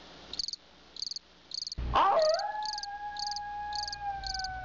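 Crickets chirping in short pulsed chirps, about three every two seconds. About two seconds in, a long howl starts and is held, sagging slowly in pitch.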